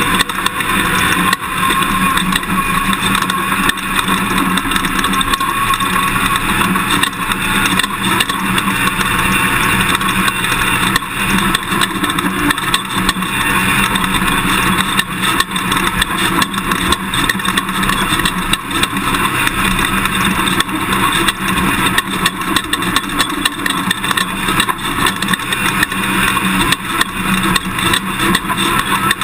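Toyota Tundra pickup truck driven over rough dirt, heard from inside the cab: steady engine and tyre noise with constant rattling and knocks from the bumpy ground.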